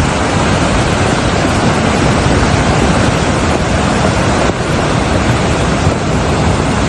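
Floodwater rushing, a loud, steady noise of churning water with no break.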